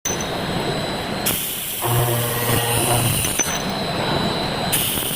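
Automatic circular saw machine running in repeating cycles: a steady mechanical noise, with a loud hiss of the blade cutting that comes in about a second in, fades, and comes back near the end.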